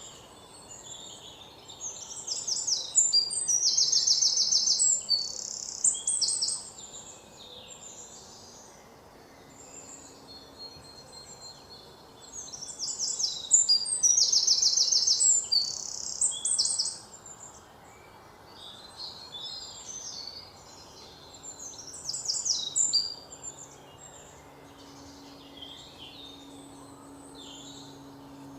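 A songbird singing: two long bouts of fast, high, trilled phrases, each about four seconds, with scattered shorter chirps later, over a faint steady background hiss.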